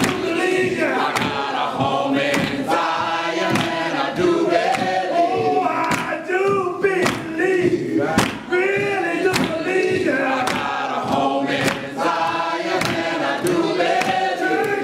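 Congregation singing a gospel song together over steady rhythmic hand clapping, about two claps a second.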